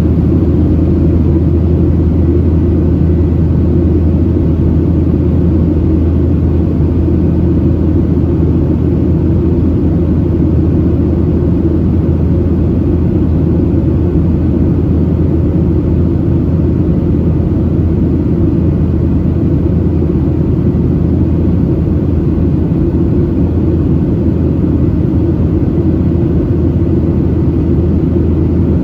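Steady low rumble inside the cabin of a Boeing 737-700 in flight: engine and airflow noise from its CFM56-7B turbofans, unchanging throughout.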